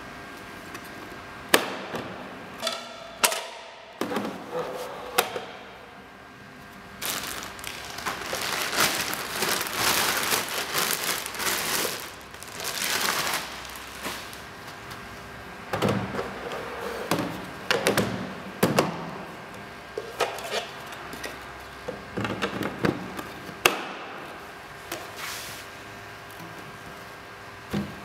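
Handling sounds of an air purifier's filter being changed: hard plastic knocks and clunks as the housing is tipped and its base cover taken off and put back, and a long stretch of rustling and scraping in the middle as the cylindrical HEPA filter is slid out and a new one slid in. A faint steady hum runs underneath.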